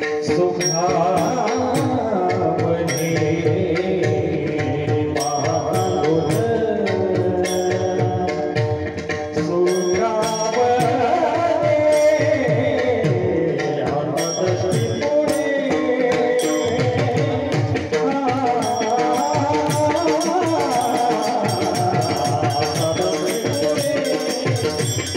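Live devotional kirtan music: a man's voice singing a melody into a microphone, accompanied by tabla and a steady run of sharp percussion strikes.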